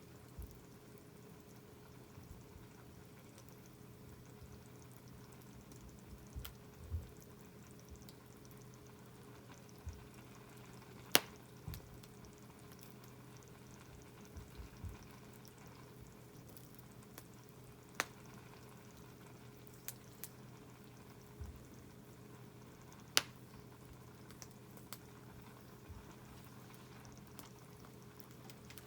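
A scrap-lumber campfire crackling with a few sharp, isolated pops, while the food in a tin can heated over it simmers and sizzles quietly. A faint steady hum runs underneath.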